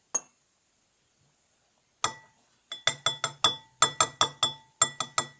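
A spoon clinking against a bowl as slime is stirred: a single ringing clink at the start, another about two seconds in, then a quick run of clinks, about four or five a second, through the rest.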